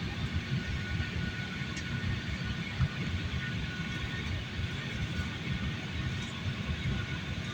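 Passenger jet engines running steadily, with a low, uneven rumble and a couple of faint steady high whines.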